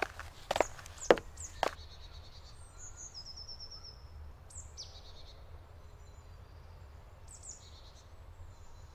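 Four short sharp knocks about half a second apart in the first two seconds, then small birds chirping and giving high, falling trills a few times, over a low steady rumble.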